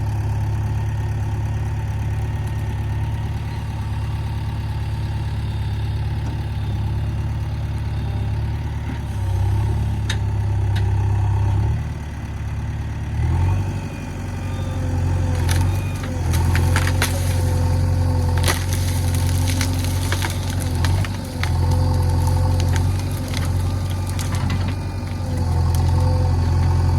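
JCB 3DX backhoe loader's diesel engine running steadily, its note changing about halfway through as it takes on load. After that come repeated sharp cracks and clanks over the engine.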